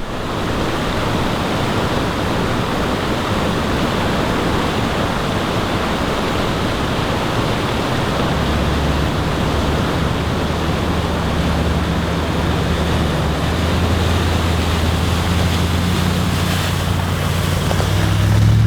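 Four-wheel drive on the move: steady wind and road noise, with a low engine hum that grows stronger from about halfway and peaks near the end.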